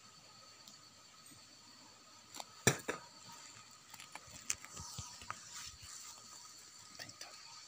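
Sharp knocks and clicks from the phone being handled, the loudest about two and a half seconds in, then scattered ticks and rustles as it moves, over a faint steady high-pitched drone.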